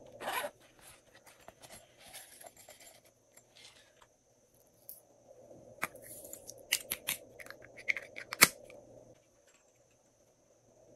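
Small plastic slime-topping containers being handled and opened: sharp clicks and crinkly plastic rustling, busiest in the second half, with one loud click about eight and a half seconds in.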